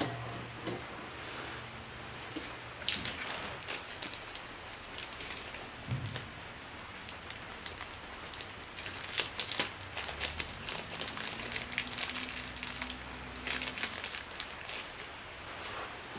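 Light, irregular clicks and rustling from hands fitting parts onto the shafts of a Honda Super Cub C90's open crankcase, with clusters of clicks about three, nine and thirteen seconds in.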